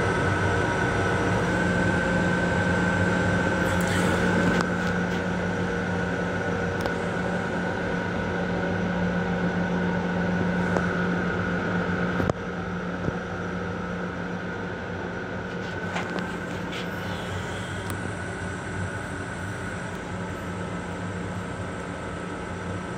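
Steady interior drone of a Long Island Rail Road M7 electric railcar, heard from inside its restroom, with several held humming tones and a few light clicks. About twelve seconds in, a click is followed by a drop in loudness.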